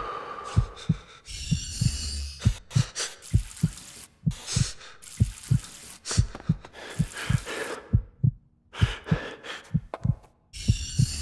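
A heartbeat sound effect: a fast, even run of low thumps throughout, with irregular bursts of hissing noise laid over it.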